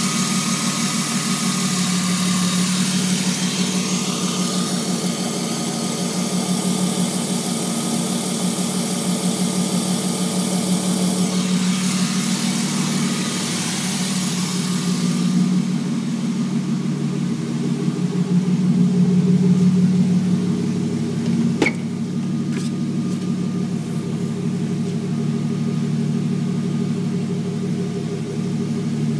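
BMW M3 engine idling steadily while warming up, heard from the open engine bay by its cone air filter. A hissing layer over the idle stops about halfway through, and a single sharp click comes about two-thirds in.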